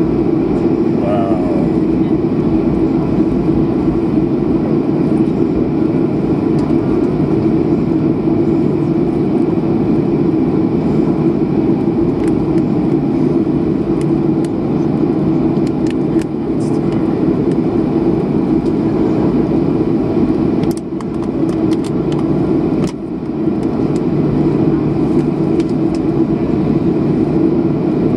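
Jet airliner cabin noise while taxiing: the engines at taxi power and the cabin air make a steady, loud hum with a low drone, dipping briefly twice near the end.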